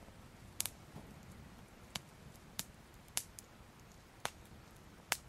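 Faint flame crackling: a low hiss broken by sharp, irregular crackles, roughly one a second.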